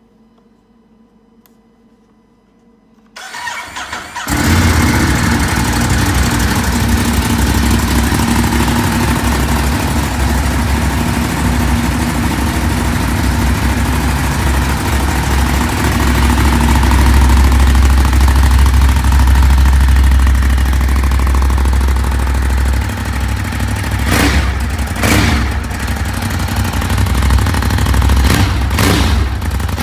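2018 Ducati Monster 821's L-twin engine on its stock exhaust being started: about three seconds in the starter cranks briefly, the engine catches and settles into a loud, steady, lumpy idle, getting louder for a few seconds in the middle. A few short sharp bursts come near the end.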